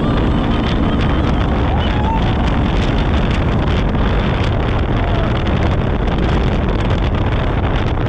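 Side-by-side UTV driving on a dirt track: steady engine and driving noise mixed with heavy wind buffeting on the microphone.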